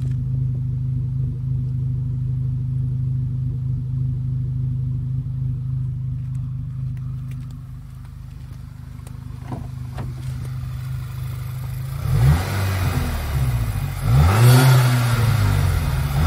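VW Scirocco four-cylinder petrol engine idling steadily, then revved in several short blips over the last few seconds. It runs evenly with a new coil pack in cylinder 3: the misfire from the failed coil pack is cured.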